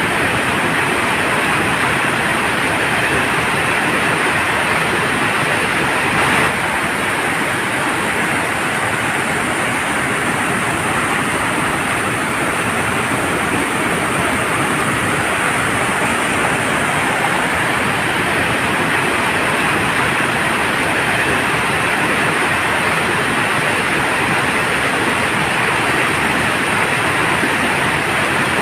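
Waterfall: water falling and rushing steadily, a loud, even rush of water.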